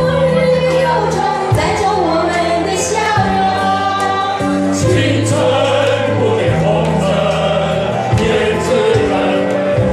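A mixed group of men and women singing a song together into handheld microphones over a musical accompaniment with steady low notes that change every second or so.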